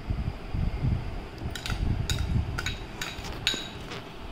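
Grapes tipped from a small bowl into a glass bowl of custard: a low handling rustle, then a quick run of light clinks on the glass, about six or seven over two seconds, from about a second and a half in.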